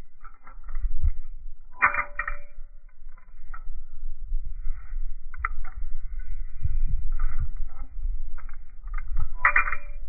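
Mini balisong (butterfly knife) being flipped: its metal handles and pivots click and rattle throughout. Two loud clacks, about two seconds in and near the end, ring briefly as the handles snap together. A low rumble runs underneath.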